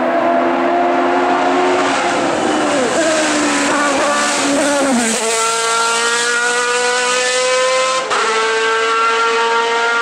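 Open-wheel single-seater race car engine, its pitch falling as it slows for a bend, then climbing as it accelerates away hard, with a quick gear change near the end.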